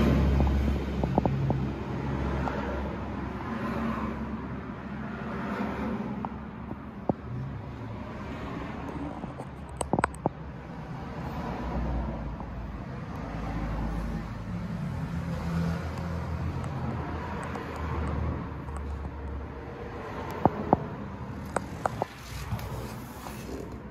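Yamaha Tracer 700's parallel-twin engine idling steadily, its low hum rising and falling slightly, with a few sharp clicks about ten seconds in and again near the end.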